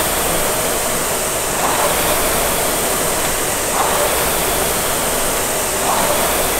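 Air-resistance rowing machine's fan flywheel spinning with a steady whoosh that swells with each pull stroke, about every two seconds.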